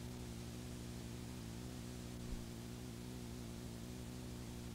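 Steady hiss with a low electrical hum from blank videotape playing after the programme has ended, with one faint click a little after two seconds in.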